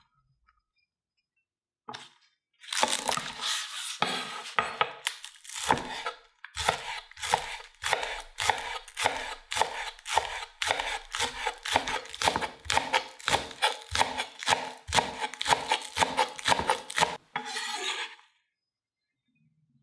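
A knife chopping on a cutting board: a long run of sharp, even strokes at about two to three a second, a little denser and more irregular at first, stopping near the end.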